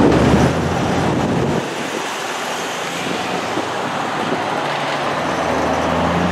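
Road traffic driving over a railroad crossing: engines and tyre noise from cars and trucks, including a pickup towing a round baler. A low engine hum drops away suddenly about one and a half seconds in and returns near the end.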